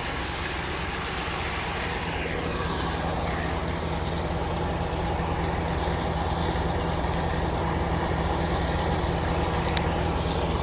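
A large boat engine running steadily: a low drone with a thin high whine over it, growing a little louder over the stretch.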